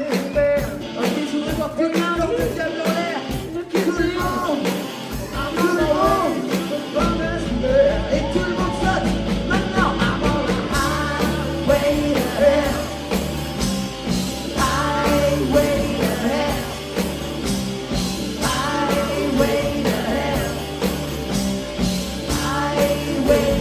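Rock-and-roll song with singing over a steady beat; a bass line comes in about seven seconds in.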